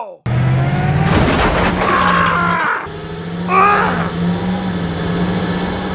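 Tractor engine running with a steady low drone, broken briefly near the three-second mark, and short high-pitched cartoon-style squeals from the driver figure about two seconds in and again near four seconds.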